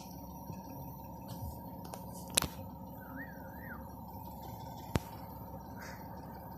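Quiet night background with a steady faint hum, broken by two sharp clicks about two and a half seconds apart and a brief faint warbling chirp between them.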